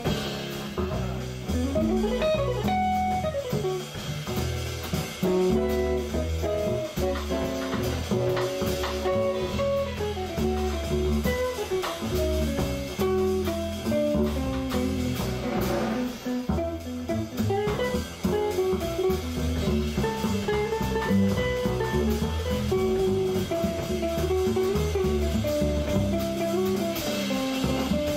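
Live small-group jazz: a hollow-body electric guitar solos in quick single-note lines over walking upright bass and a drum kit.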